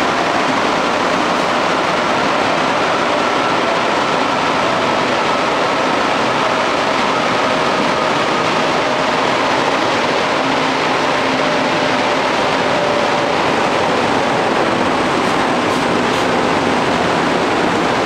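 Interior running noise of an MR-63 rubber-tyred metro car: a loud, steady rush with a faint whine that drifts slowly down in pitch as the train slows towards a station.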